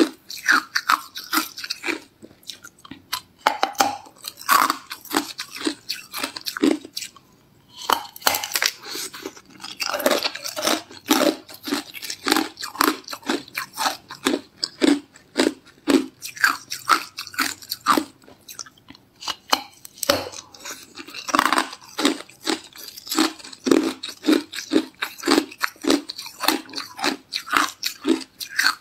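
Hard clear ice being bitten and chewed: a rapid run of sharp crunches, a few a second, broken by a couple of brief pauses.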